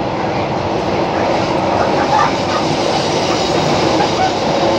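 Delhi Metro train running along the track, heard from inside the carriage: steady noise of the wheels on the rails and the car in motion, with a faint steady hum.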